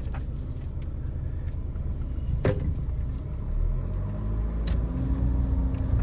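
Car driving, heard from inside the cabin: a steady low rumble of engine and tyres, with a sharp knock about halfway through and another a little later. The rumble grows louder toward the end.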